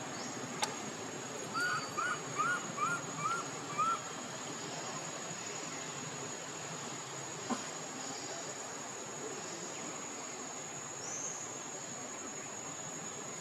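Insects, crickets among them, keep up a steady high-pitched trill. About two seconds in, a run of six short chirps rises and falls in quick succession, and there are two sharp clicks.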